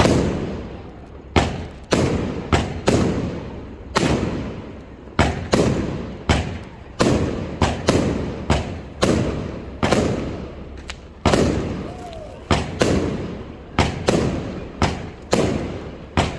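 Fireworks display: a rapid, uneven series of shell bursts, about two bangs a second, each trailing off in a rumbling echo.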